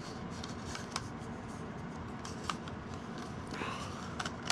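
Faint handling noises of a camera and lens: a few light plastic clicks and a short scrape as a lens cap is fitted onto a 50mm lens.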